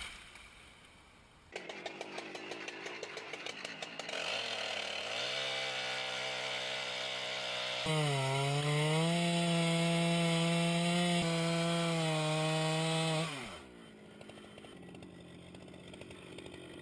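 Sawmill's powered saw cutting wood: a rapid rattle starts about a second and a half in, a pitched drone builds and runs loud and steady from about eight seconds, then drops in pitch and fades at about thirteen seconds.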